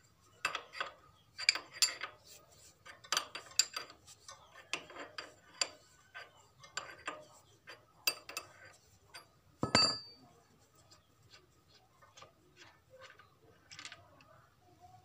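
Metal parts and hand tools clinking and tapping while a diesel engine's fuel injection pump is taken apart by hand, with one heavier knock about ten seconds in.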